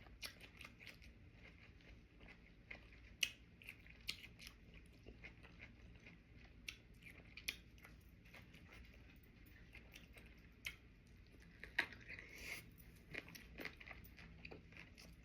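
A person chewing and biting into cucumber-and-salmon sushi boats, giving faint, irregular crunches and clicks.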